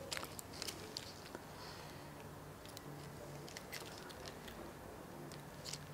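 Faint, irregular small clicks and ticks of a scooter smart key fob's plastic case and circuit board being handled and fitted back together by hand after a battery change.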